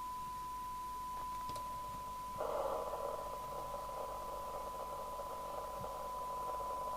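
Steady 1 kHz test tone from a signal generator, received and played through an FM CB radio's speaker during receiver alignment. About two and a half seconds in, a band of receiver hiss comes up under the tone.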